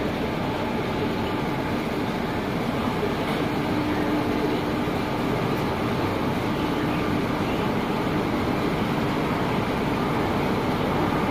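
Electric locomotive running light at walking pace as it approaches to couple onto the train for the diesel-to-electric engine change. Its steady running noise carries a low hum through roughly the first half.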